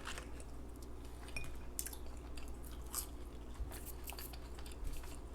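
Close-miked chewing of fast food, with scattered wet mouth clicks and smacks.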